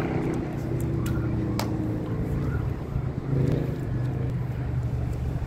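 A steady low engine drone from a distant motor, with a couple of sharp clicks a second or so in.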